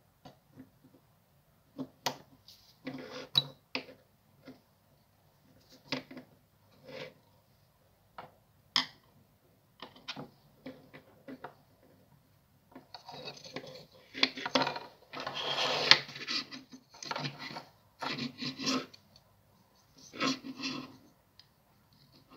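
A screwdriver and small metal spade terminals clicking and scraping against a plastic brush-holder plate as the terminals are worked on and off their tabs. The sound comes as scattered short clicks, with a longer stretch of scraping and rattling past the middle.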